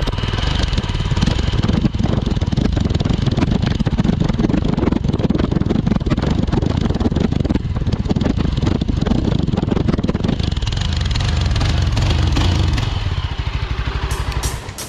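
Yezdi Scrambler's 334 cc single-cylinder, liquid-cooled engine running, heard close at the stock exhaust silencer outlet. It dies away near the end.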